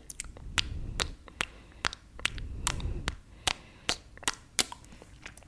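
Close-miked wet mouth clicks and pops from fingers being sucked and licked: a quick, fairly even series of sharp smacks, about two to three a second.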